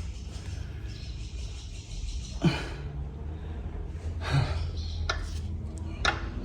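A few sharp knocks and clicks of a hand tool on the Ducati S2R 1000 engine as its crank is turned over by hand to line up the cam belt timing marks, over a steady low hum.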